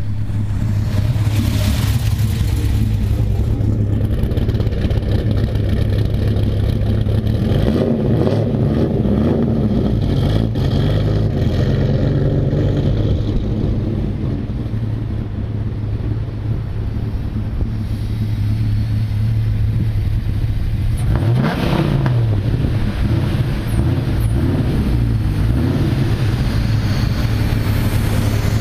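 2004 Dodge Ram SRT-10's 8.3-litre V10 running at low revs with a deep steady drone. About three-quarters of the way through, the revs dip briefly and climb again.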